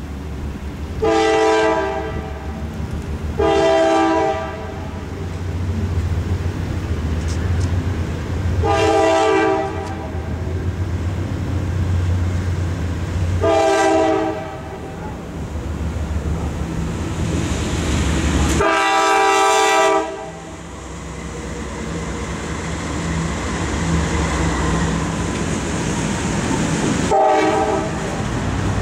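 Horn of a CSX freight train's lead locomotive, a GE CW40-8, sounding six blasts for a grade crossing: five of about a second each, spaced several seconds apart, then a short one near the end. Under the blasts runs a steady low diesel rumble that grows louder as the train reaches the crossing.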